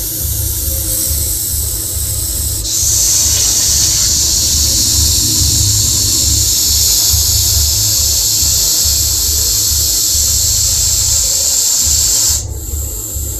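Russell's viper hissing: a loud, steady hiss that grows stronger about three seconds in, holds for roughly ten seconds, and drops back near the end.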